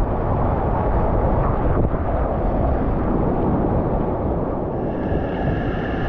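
Whitewater rushing steadily around a kayak as it runs river current, heard close to the water, with wind rumbling on the camera microphone.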